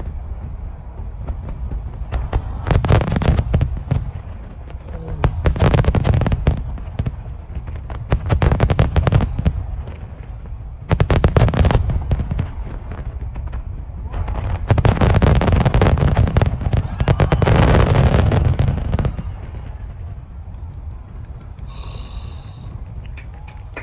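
Aerial fireworks display going off in repeated volleys: dense rapid crackling with low booms in about five clusters, the longest and loudest a few seconds before the end.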